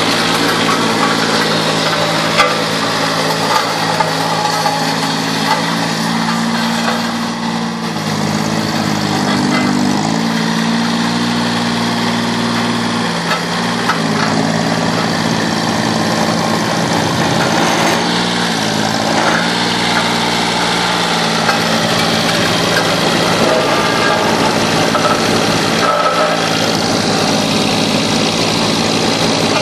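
Engine of an Ammann SV 12 ride-on tandem roller running steadily, its pitch shifting a few times as the roller is driven about.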